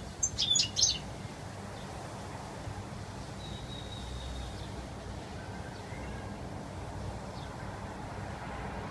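European goldfinch giving a few quick, sharp chirps in the first second, then falling silent over a steady low background rumble, with one faint thin note a few seconds in.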